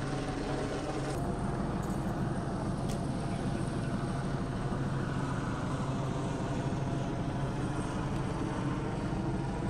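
Steady drone of a law-enforcement helicopter hovering overhead, a constant low hum with noise spread over it.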